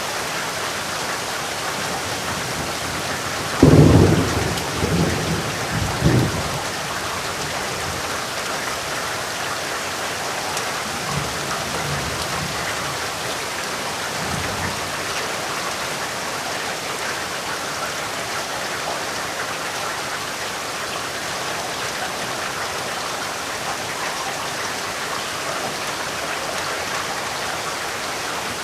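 Steady rain with a sudden thunderclap about three and a half seconds in that rumbles on for about three seconds, followed by fainter rolls of thunder around eleven and fourteen seconds.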